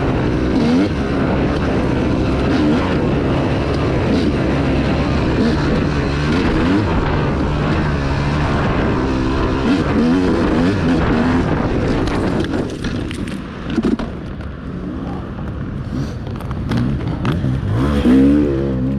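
Off-road dirt bike engine ridden hard on a trail, its pitch rising and falling with the throttle. From about twelve seconds in it drops to a lower, quieter run with a few sharp knocks, then revs up steeply again near the end.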